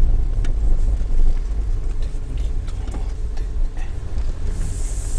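Car rolling slowly over a dirt field, heard from inside the cabin: a steady low rumble of engine and tyres, with a few faint ticks and a brief hiss near the end.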